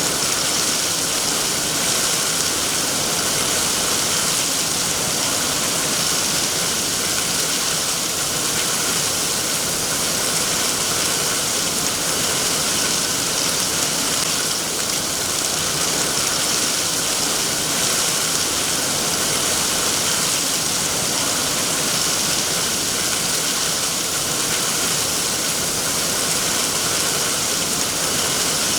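Steady rainfall: an even, unchanging hiss of rain.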